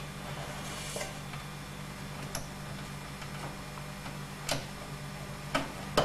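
A few light clicks and taps from handling and seating the small plastic plug of a CD audio lead in a PC case, over a steady low hum. The clicks come about a second apart at first and are loudest near the end.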